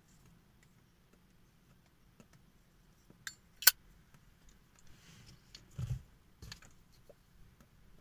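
A Zippo-style petrol lighter's lid snapping shut with one sharp metallic click about three and a half seconds in, among small scattered clicks, then soft puffing and low lip pops as a tobacco pipe is drawn to get it lit.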